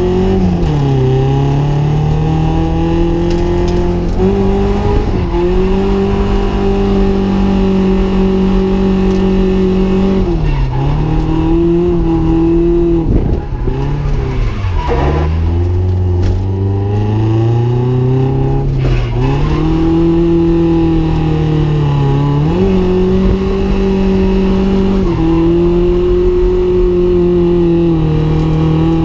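Drift car's engine held at high revs through a run, its pitch dropping sharply about half a dozen times as the throttle is lifted or a gear is shifted, then climbing back. The deepest drop comes about halfway through.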